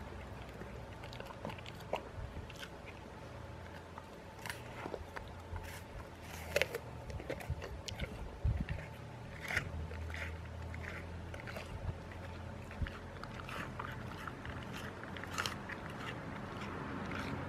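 Bull terrier biting and chewing pieces of apple: irregular crisp crunches every second or so, with a few louder bites spread through.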